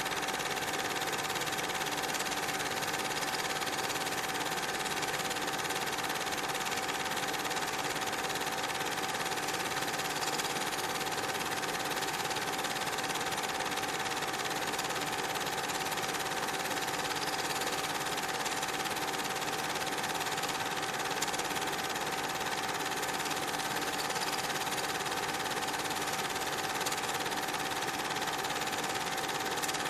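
Steady mechanical whirring with a constant high whine above it, unchanging and without separate knocks or puffs.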